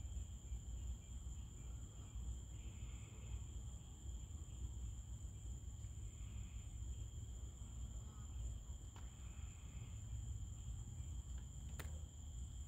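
Night insect chorus: crickets trilling steadily at a high pitch, with a second, lower steady trill and a short call repeating every three to four seconds. A low rumble lies underneath, and there is a single click near the end.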